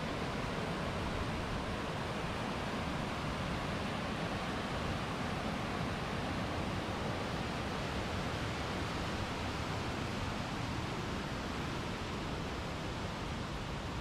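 Waterfall rushing, a steady even roar of falling water with no change in level.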